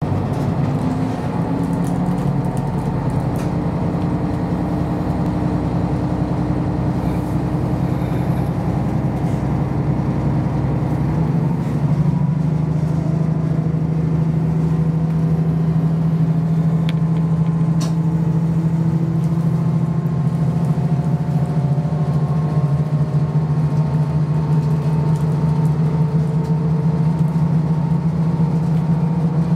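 Diesel engine of a KiHa 54 railcar heard from inside the cabin as the train pulls away and runs on, a steady drone whose note changes about eleven seconds in. A couple of short clicks come a little past halfway.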